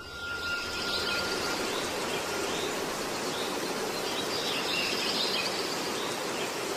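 Small birds chirping faintly over a steady background hiss, with a thin steady whistle at the start that fades within the first second or two.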